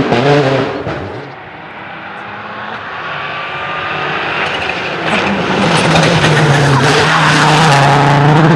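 A rally car's engine passes at full throttle and fades away in the first second or so. Then a rally car approaches, its engine growing louder until it is running loud and steady from about halfway through.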